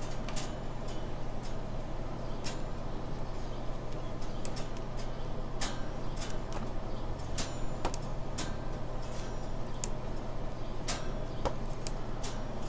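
Glossy pages of a large hardcover photo book being turned by hand, with scattered short paper clicks and flicks, over a steady low hum.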